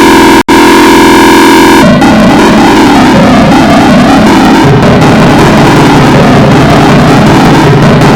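Mock emergency alert system alarm: loud, distorted synthesized tones. A steady buzzy chord cuts out briefly near the start, then just before two seconds in gives way to a dense, clipped, clashing jumble of tones.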